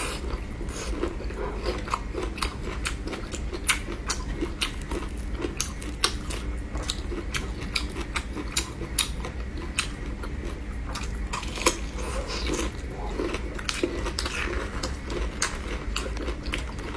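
Close-miked chewing and biting of food, with many short crisp crackles scattered through.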